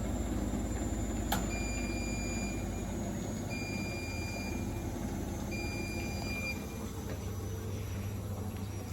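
Bosch washing machines running their final spin, a steady machine hum. About a second in there is a click, then three long high beeps about two seconds apart from a machine's control panel. The low rumble eases near the end.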